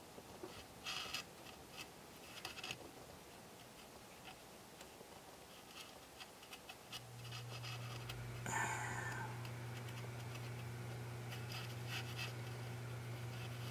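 Faint scratching and small clicks of a fine paint applicator working against the plastic body of a model train cab. About halfway through a steady low hum starts and keeps going, with a brief, slightly falling sound just after it begins.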